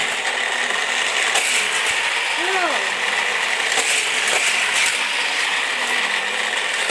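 Steady, continuous mechanical rattling whir of a small mechanism. A brief rising-and-falling squeak comes about two and a half seconds in.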